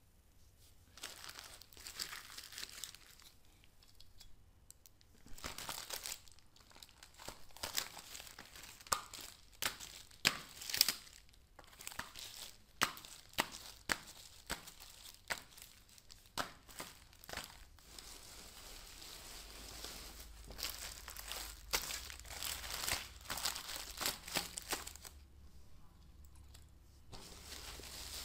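Clear plastic bags holding phone cases crinkling and rustling as they are handled and shuffled, in irregular bursts with many sharp clicks among them.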